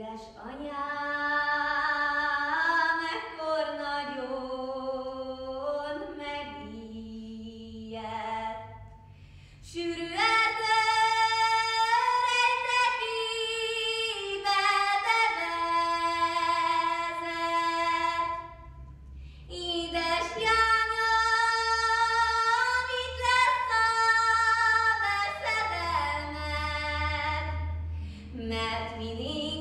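A girl's solo voice singing a Hungarian folk ballad unaccompanied, in three long phrases of held and gliding notes, with short breaks for breath between them.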